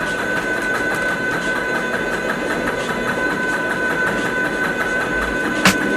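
Motorized grain mill running steadily, a constant motor whine under the rattle of grain being crushed. A single sharp hit sounds near the end.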